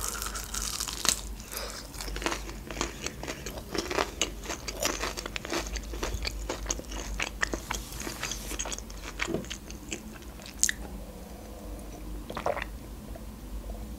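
Close-miked crunching and chewing of a crispy fried chicken wing, dense crackles that thin out after about nine seconds. A short sip from a glass near the end.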